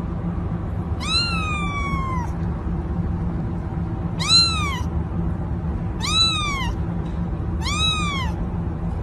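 Young orange tabby kitten meowing four times, high-pitched: a longer first meow that falls in pitch, then three shorter meows that rise and fall, about two seconds apart. A steady low hum lies under them.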